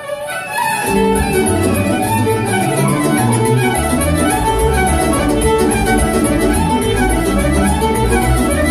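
Electric violin, played through an amplifier, bowing a melody. A backing accompaniment with a strong bass line comes in about a second in.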